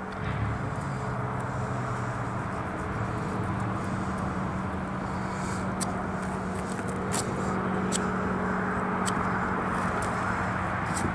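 A motor vehicle's engine running steadily, a low hum that swells just after the start, with a few faint sharp clicks over it.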